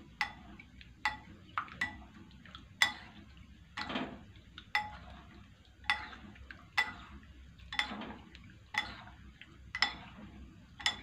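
A metal spoon and wooden chopsticks stirring fish fillets in beaten egg in a ceramic bowl, clinking against the bowl about twice a second, each clink ringing briefly.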